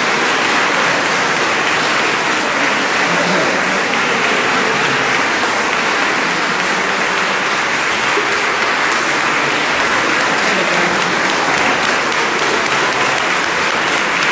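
An audience applauding steadily and at length, a round of thanks for the speaker.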